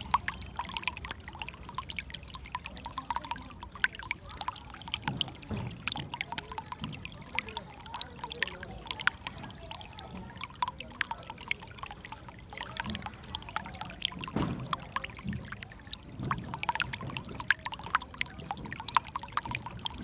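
Shallow water running over stones: a constant patter of small splashes and drips over a steady rush, with an occasional deeper gurgle.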